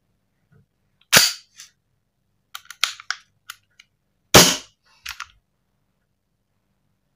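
Metal slide of a KJ Works KP02 Sig Sauer P229 gas blowback airsoft pistol being worked by hand with no gas loaded. It snaps forward with a sharp metallic clack twice, about a second in and again past the four-second mark, with lighter clicks of the slide and its catch between and just after.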